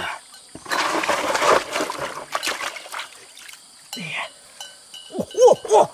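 Splashing and sloshing in shallow water for a second or so, beginning about a second in. Near the end, a few short voice-like calls, each rising and falling in pitch.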